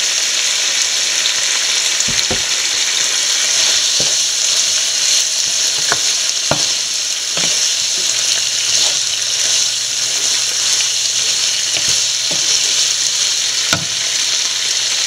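Chicken and breadfruit curry sizzling steadily in a nonstick pan as a wooden spoon stirs it, with a few sharp knocks of the spoon against the pan.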